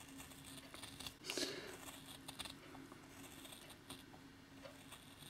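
Small needlework scissors making faint, short snips through 1 mm wool felt, one louder snip about a second and a half in.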